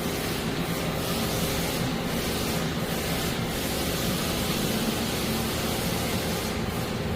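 Doosan Puma MX2600ST CNC lathe running under test: a steady hiss with a low, even machine hum underneath.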